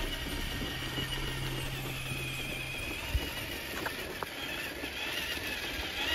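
Electric motor and gear drive of a Traxxas TRX-4 RC crawler truck running, with a high whine that wavers up and down as the throttle changes. A few light clicks are heard a little after three and four seconds in.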